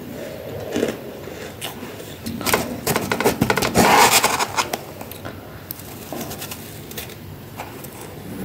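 A thin metal spoon scraping and scooping packed freezer frost in a plastic tub, with a dense run of crisp crackling from about two and a half to four and a half seconds in. Softer crunching of frost being chewed goes on around it.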